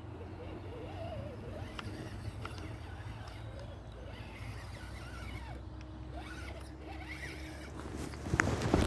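Small electric motor and gears of an RC crawler truck whirring at low speed, with gritty rasping as it works over rough ground. Near the end come a run of loud clicks and crunches from tyres and chassis on rocks.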